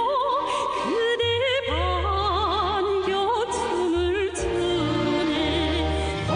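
A song playing: a voice singing held notes with wide vibrato over backing music with a bass line.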